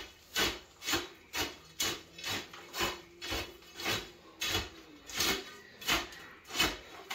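Gravel being poked and tamped down with a hand tool, a short crunching scrape about twice a second, to pack and settle it around a sump pump basin.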